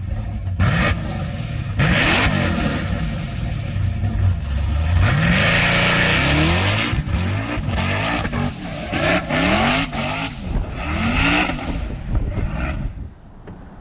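CF Moto 800 EX's V-twin engine revving through a custom straight-through exhaust with a carbon-fibre muffler, blipped up and down several times in quick succession, with a rough, raspy exhaust note. It cuts off near the end.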